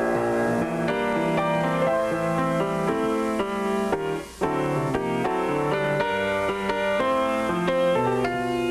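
Background music led by a keyboard, with notes changing in quick succession and a brief drop in level about four seconds in.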